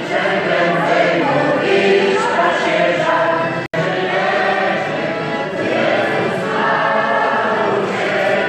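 A group of voices singing a Christmas carol together in chorus, with a split-second break in the sound a little before halfway.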